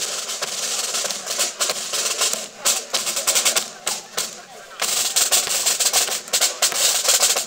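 Marching-band snare drums playing a fast, rattling cadence, easing off for a couple of seconds in the middle and then stopping sharply near the end.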